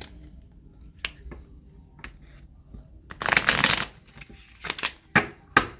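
A deck of tarot cards being handled: a short shuffle of the cards about three seconds in, with single card snaps and taps before and after as cards are drawn and laid down.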